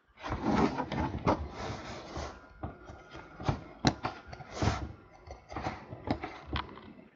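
Trading cards being handled and flipped through by hand: irregular rustling and sliding of card stock, with several sharp clicks and snaps.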